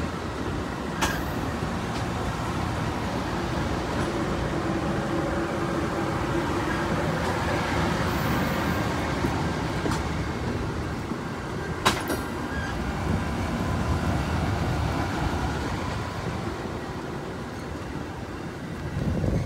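Amtrak Superliner passenger cars rolling past: a steady rumble and rattle of steel wheels on rail, with two sharp clicks about a second and about twelve seconds in. The sound eases slightly as the last car passes near the end.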